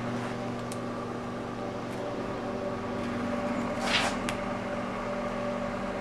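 Sharp Carousel microwave oven running with a steady electrical hum while a compact disc cooks inside it. A short hiss and a sharp click come about four seconds in.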